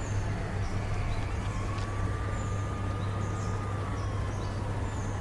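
Steady low rumble of outdoor background noise, with a faint held tone through the middle and a few faint, brief high chirps.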